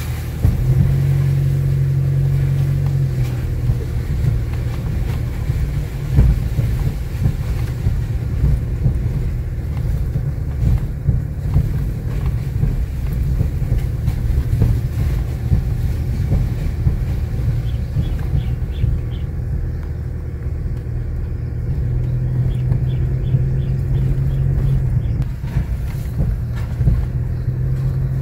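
Car engine and tyres on a rough dirt road, heard from inside the cabin: a steady low rumble, with the engine hum holding a steadier note for a few seconds near the start and again near the end.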